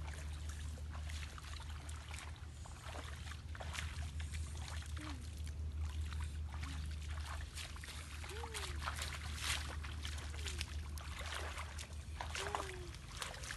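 Feet splashing through shallow water in an irregular run of wading steps, over a steady low hum.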